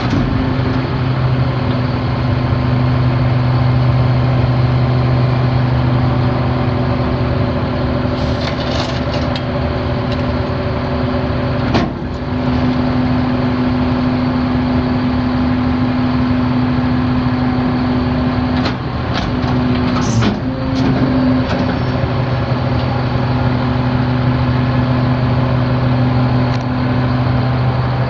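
Mercedes-Benz MBE900 6.4-litre inline-six turbo diesel of a 2007 Freightliner M2 refuse truck running at a steady speed. A sharp knock comes about twelve seconds in, and a few clicks about twenty seconds in.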